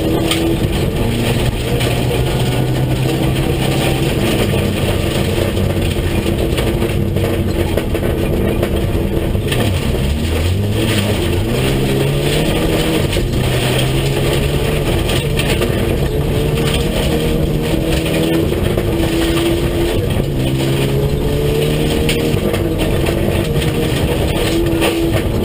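Rally car engine, heard from inside the stripped, roll-caged cabin, driven hard on a gravel stage: the revs climb, drop back at each gear change and climb again, over steady road and tyre noise.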